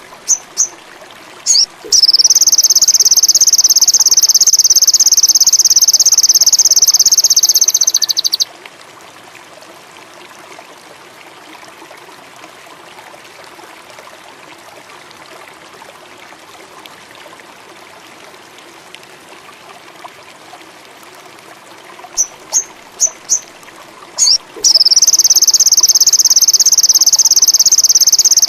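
Songbird giving a few short high chirps, then a loud, fast, buzzing high trill held for about six seconds. After a long pause it gives about four more chirps, and the trill starts again near the end. A soft, steady, water-like hiss runs underneath.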